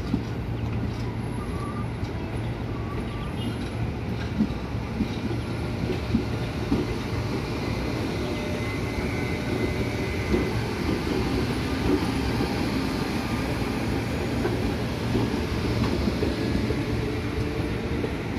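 KRL Commuter JR 203 series electric train rolling slowly past, with a steady running rumble and irregular clacks of its wheels over rail joints and points.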